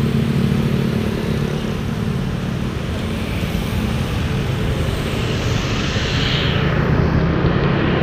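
Busy road traffic: motorcycle engines and a Mercedes-Benz intercity coach's diesel engine running as the coach approaches and passes close, a steady low rumble over tyre noise that grows a little louder near the end.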